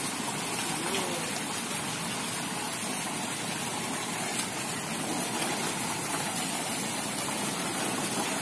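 Steady gushing rush of swimming-pool water, from water spouts pouring into the pool and children splashing in it.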